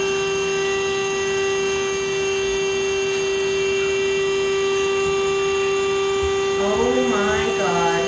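Uproot Clean pet grooming vacuum and its hose-connected electric hair trimmer running as the trimmer works through a dog's coat: a steady hum that holds one pitch.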